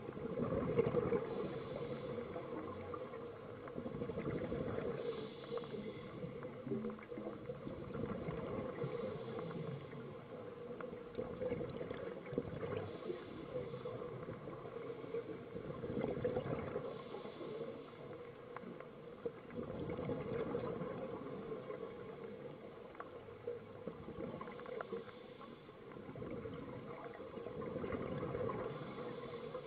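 Scuba diver's breathing through a regulator, heard underwater: exhaled bubbles gurgle in swells about every four seconds over a steady hum.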